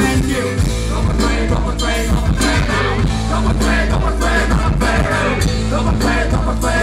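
A live rock band is playing loudly with drums, bass guitar, electric guitar, keyboard and a brass section of trumpet and trombone, driving a steady beat over a strong bass line.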